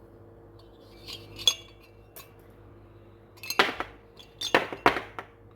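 Metal clinking and clattering of tools and parts being handled on a workbench: a few light clinks about a second in, then two louder bursts of clatter near the end, over a faint steady hum.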